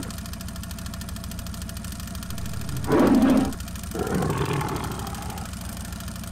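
A steady engine-like drone with a loud short snarl about three seconds in, then a longer rough growl just after four seconds: a big cat snarling and growling.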